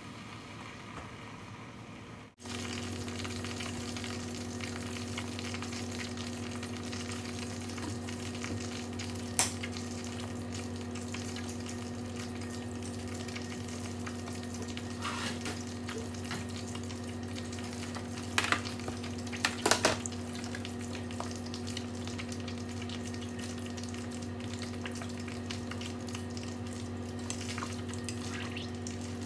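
Pork belly frying in a stainless steel pan of reused oil: a steady sizzle that starts abruptly a little over two seconds in, over a steady low hum, with a few sharp clicks around the middle.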